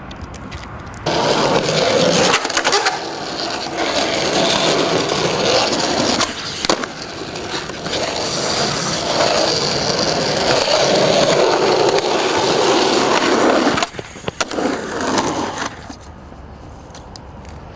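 Skateboard wheels rolling on rough asphalt: a loud, steady rumble that starts about a second in and cuts off suddenly near fourteen seconds. It is broken by a few sharp clacks of the board. Quieter rolling trails on for a couple of seconds after.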